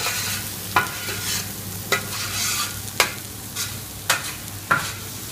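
Paella base of onion and beans frying with a steady sizzle in a large paella pan while being stirred, a utensil knocking or scraping against the pan five times, about once a second.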